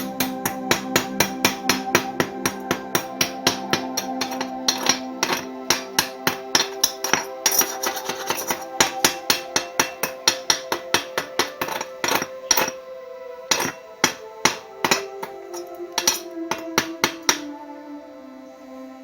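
Hammer striking an iron bar in rapid, even blows, about three or four a second, each with a metallic ring; the blows thin out and pause near the end.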